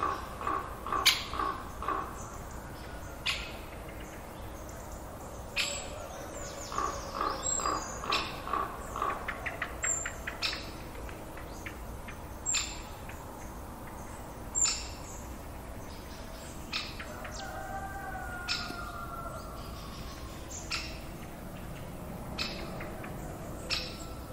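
Countryside forest ambience of birds chirping and calling. Short sharp chirps are scattered throughout, a pulsing call repeats about four times a second in two runs, and there is a brief fast trill, over a soft steady background hiss.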